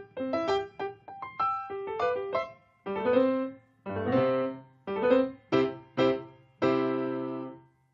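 Solo piano playing short, detached notes and chords in separate groups, closing with a series of accented chords and a last chord held for about a second before it is released near the end.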